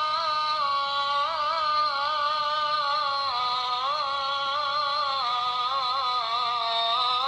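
Background music: a single melody line that holds long notes, sliding and wavering between them with ornaments, at a steady level.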